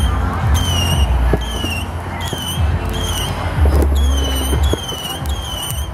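Distant fireworks going off in dull low thumps over a steady low rumble, while a high, falling chirp repeats about twice a second.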